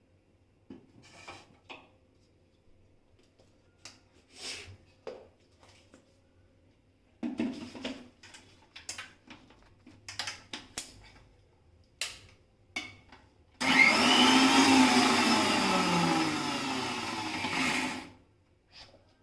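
Scattered clicks and knocks, then about 13 seconds in an electric mixer grinder runs loudly for about four seconds, grinding coriander, curry leaves and green chillies into a coarse paste; its pitch falls as it runs.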